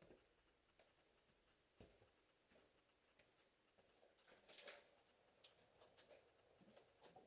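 Near silence: room tone with faint scattered clicks and a brief soft rustle about four and a half seconds in.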